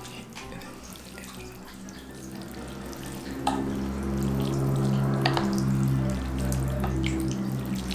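Wooden spoon and fork stirring and lifting noodles in a glass dish of broth: wet sloshing, with a few light clicks of the utensils. Soft background music with held notes comes in about three seconds in and gets louder.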